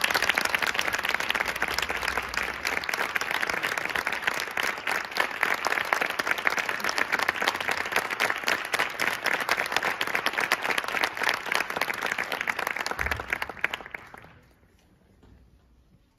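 Audience applauding, a dense steady clapping that dies away about two seconds before the end.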